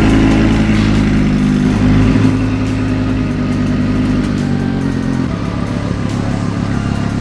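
Audi R8 V10 Plus's V10 engine running at a steady speed, its note shifting a couple of times.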